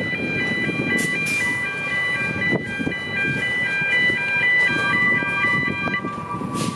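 A chime of high electronic tones stepping up and down in a repeating pattern stops about six seconds in. Under it, a narrow-gauge train rumbles across a road on street track. A steady high squeal, typical of wheel flanges grinding on the tight curve, grows louder about five seconds in.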